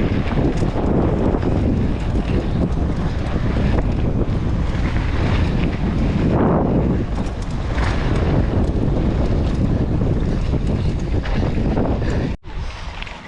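Loud wind buffeting an action camera's microphone, surging and easing throughout. It drops off abruptly near the end to a quieter level.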